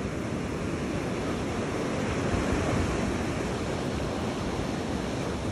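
Ocean surf breaking and washing up the sand at the shoreline, a steady rushing wash.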